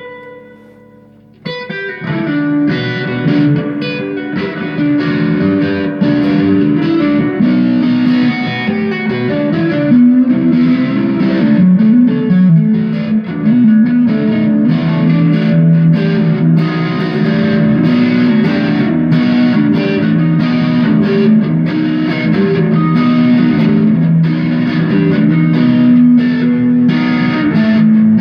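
Electric guitar played solo through an amplifier, freely jammed: one note rings out and fades just after the start, then a steady stream of melodic runs and chords follows.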